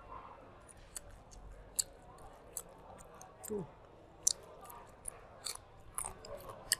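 Close-up chewing of roasted garlic and grilled pork: irregular sharp, wet mouth clicks and lip smacks, with a short falling hum about three and a half seconds in.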